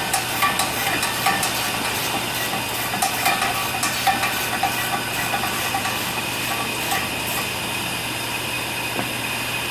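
Steady machine hum and hiss in a workshop, with scattered light metallic clicks of a wrench tightening a rear brake caliper bracket bolt, the clicks mostly in the first half.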